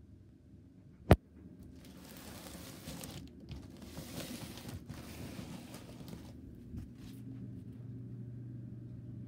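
A single sharp click about a second in, then a few seconds of rustling handling noise, and a low steady hum that sets in near the end.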